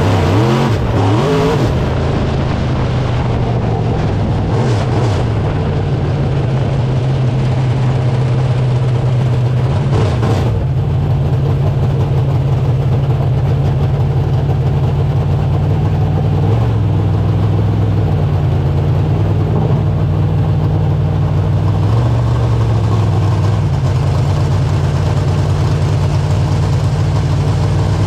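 Dirt late model race car's V8 engine running at a mostly steady speed, heard from inside the car. Its pitch shifts briefly near the start, about ten seconds in, and a few more times later.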